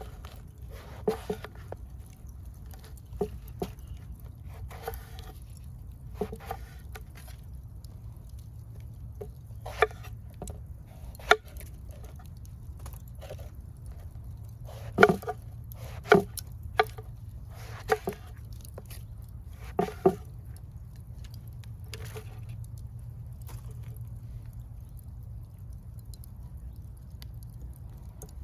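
Scattered sharp knocks and taps at irregular intervals, a cluster of louder ones about 15 to 20 seconds in, over a steady low rumble.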